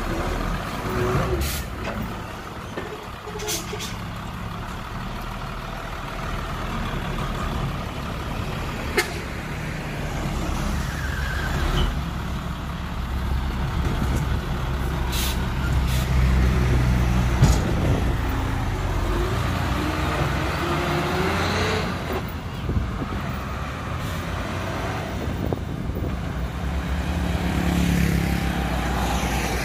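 Dump truck's diesel engine running steadily while the loaded tipper bed is raised and then let down, with a few sharp clicks and knocks along the way. Near the end, passing road traffic joins the engine sound.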